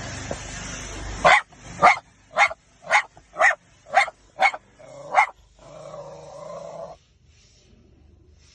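A dog barking eight times in a quick series, about two barks a second, after a second of rustling noise. It ends with a drawn-out lower call before falling quiet.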